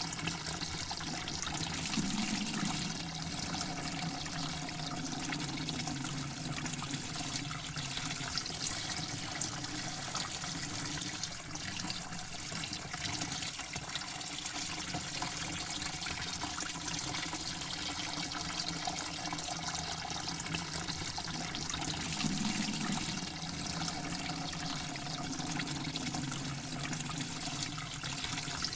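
Running water flowing steadily.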